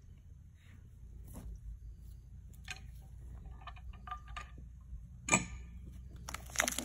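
A two-stroke chainsaw idling quietly after a cut, a low steady hum with scattered light clicks and ticks. Near the end a louder crackling, rustling noise starts.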